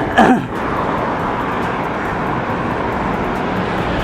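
Steady wind and road noise from riding a bicycle, heard through a helmet-mounted action camera's microphone, with a brief falling voice-like sound just after the start.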